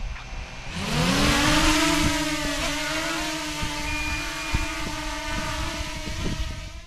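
DJI Mini 2 drone's propellers spinning up with a rising whine about a second in as it lifts off, then a steady buzzing hum while it hovers.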